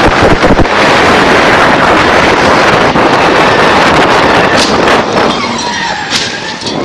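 A sports car running fast, its engine noise loud and distorted and mixed with wind rushing over the microphone. Short pitch glides near the end as the car passes.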